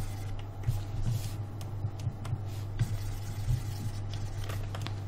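Steady low hum with scattered light clicks and taps through it.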